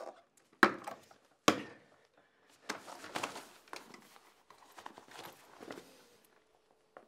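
Two sharp knocks a little under a second apart, followed by several seconds of irregular scuffling and rustling.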